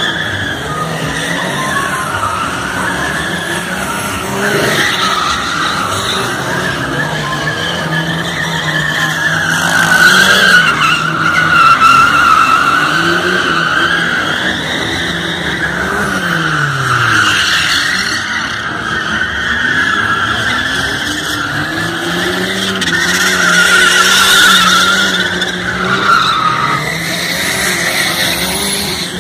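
Car tyres squealing in a long, wavering screech as the car spins doughnuts, with its engine held at high revs underneath, the revs dropping and climbing again about halfway through.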